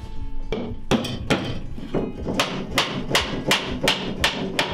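Wooden-faced mallet blows on oak, a run of sharp knocks that settles into a steady rhythm of about three a second in the second half.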